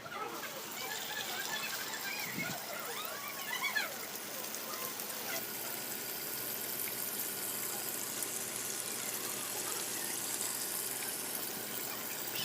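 Water trickling and splashing steadily from a small homemade pump-driven fountain. A few bird-like chirps sound in the first few seconds.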